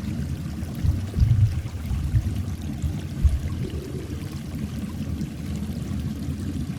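Rushing water of a small stream, a steady low rumble with a few louder surges in the first few seconds.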